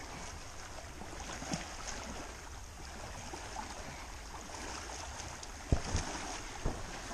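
Small waves lapping on a rocky shoreline with wind on the microphone, a steady wash of water noise. Near the end come a few low thumps.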